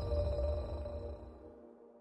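Closing notes of an intro music sting: held synth tones and a deep bass ring out and fade away, the bass stopping about one and a half seconds in.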